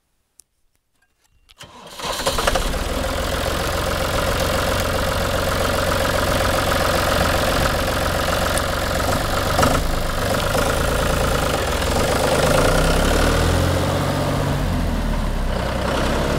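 The three-cylinder diesel engine of a 2004 John Deere 5320 tractor starting: a few faint clicks, then the engine catches just before two seconds in and runs steadily, with a shift in its low note near the end as the tractor drives off.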